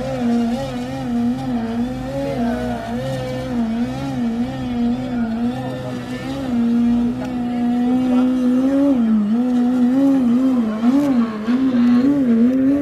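Model aerobatic plane's engine running in flight, one strong droning note whose pitch swings up and down over and over as the plane manoeuvres, holding steady for a couple of seconds midway.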